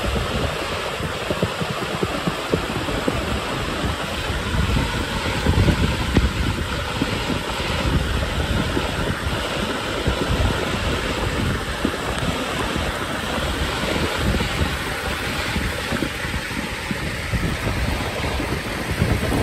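Muddy flash-flood water rushing steadily across a desert street, with wind buffeting the microphone in low, uneven rumbles.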